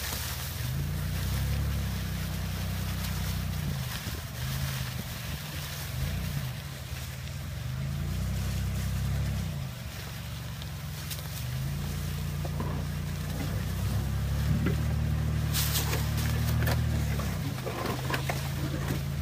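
Small off-road vehicle's engine running at low speed, its pitch rising and falling every couple of seconds as the throttle is opened and eased off. A few sharp knocks come near the end.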